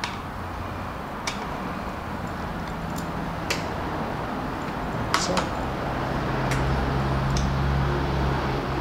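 Screws being tightened with a screwdriver in the metal plate of an EK Bigfoot kayak foot plate: a few light clicks and taps, roughly one every second or so. They sit over a steady low hum that grows louder about two thirds of the way through.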